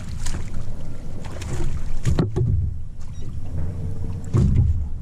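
Knocks and thumps on a small aluminium jon boat as the angler shifts his footing while fighting and landing a fish, over a low rumble. The loudest knocks come about two seconds in and again past four seconds.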